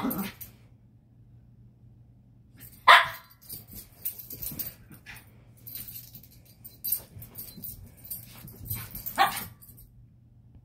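Small dog barking a few times while playing, with sharp barks right at the start, about three seconds in and about nine seconds in. Short light clicks and rattles come in between.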